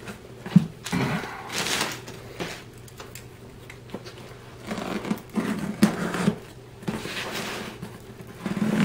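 A cardboard shipping box set down on a wooden table with a sharp knock, then scissors cutting through the packing tape along its seams: irregular scraping and crackling strokes of blade on tape and cardboard.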